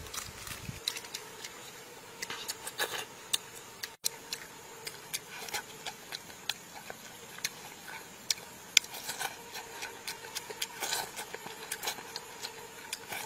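Close-up eating sounds: chewing and lip-smacking on boiled egg and salad, a run of irregular sharp wet clicks, several a second, over a faint steady hum.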